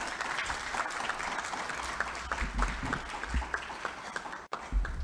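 Audience applauding, a dense patter of claps that thins out and stops about four seconds in, followed by a couple of low thumps.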